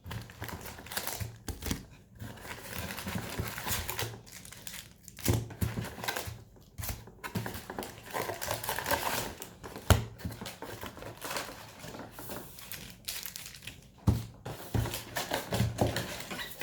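Sealed basketball card packs crinkling and rustling as they are pulled out of their cardboard box and handled, with a few sharp knocks, the loudest about ten seconds in and again about fourteen seconds in.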